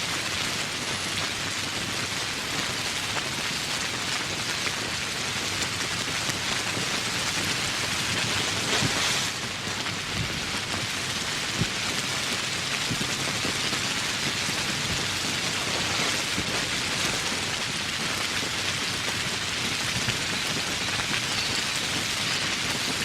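Steady rain falling, a dense even hiss flecked with the clicks of individual drops hitting close by.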